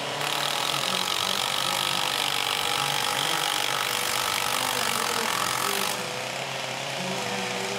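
A power tool working wood, a steady hiss that stops about six seconds in, over the drone of chainsaw engines running in the background.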